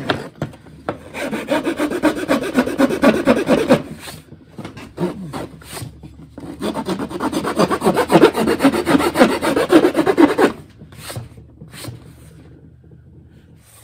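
A hand file rasping back and forth across the end grain of a wooden panel clamped to a bench, taking the edge down to a scribed line. There are two long runs of quick strokes with a pause of about two seconds between them, and the filing stops a few seconds before the end.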